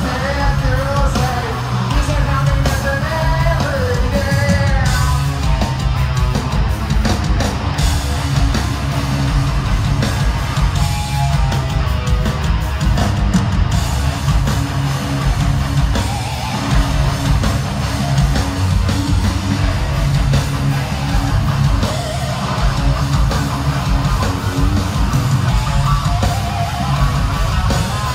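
Heavy metal band playing live: distorted electric guitar, bass and drums, recorded from within the crowd in a large hall.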